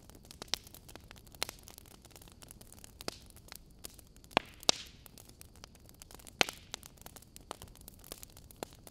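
Faint static hiss with irregular sharp crackles and pops, a second or so apart, the loudest few falling around the middle.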